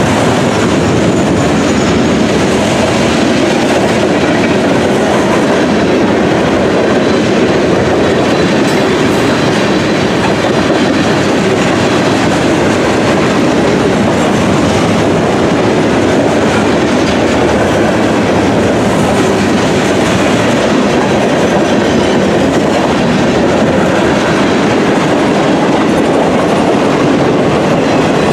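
Freight cars of a mixed manifest train rolling steadily past at close range, steel wheels running on the rails without a break.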